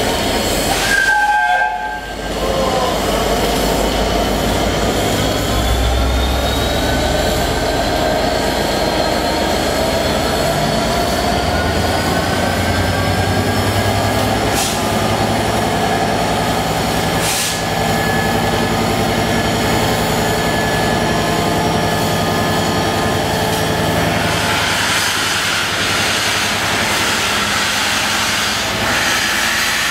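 A standing steam locomotive and a diesel locomotive: a steady low drone with held, slowly rising whining tones and an occasional clank. From about 24 s in, a loud hiss of steam escaping at the front of the A1 Pacific steam engine joins it.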